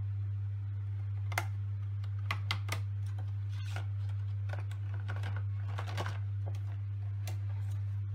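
Clear plastic packaging handled by hand, giving irregular sharp clicks and crackles as the box is turned and the compound jars inside are shifted. A steady low hum runs underneath throughout.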